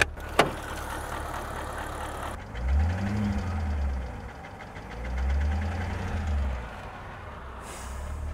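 BMW Alpina B7's V8 engine idling with a knock and blipped twice, the revs rising and falling about two and a half seconds in and again about five seconds in; the owner suspects the timing chain or rod knock. Two sharp clicks right at the start.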